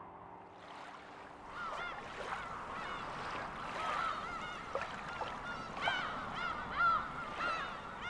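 A flock of birds calling, many short arched calls overlapping and repeating over a faint steady hiss.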